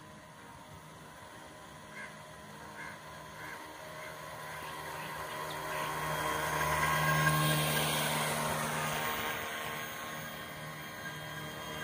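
Homemade RC boat's brushless electric motor whining as it runs across the water. It grows louder as the boat comes close, is loudest about seven seconds in, then fades as it moves away.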